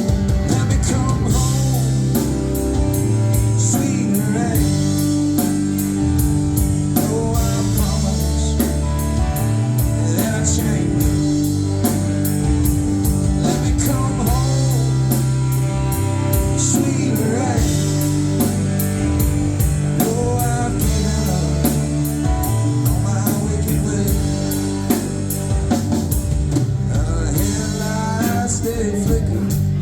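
Alt-country band playing an instrumental break with drum kit and guitars keeping a steady beat.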